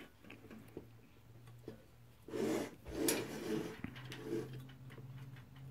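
Hands shifting and seating a glass globe and plastic gasket on a metal gumball machine base: a few light clicks, then scraping and rubbing for about a second and a half starting about two seconds in, followed by smaller handling noises.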